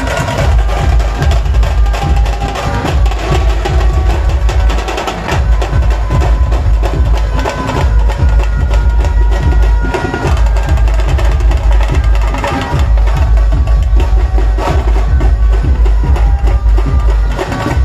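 Loud music with heavy bass and drum percussion played through a large DJ sound system.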